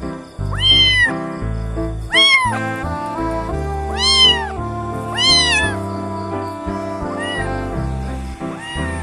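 A cat meowing repeatedly, about six rising-and-falling meows, the four in the first six seconds loudest and the last two fainter, over background music.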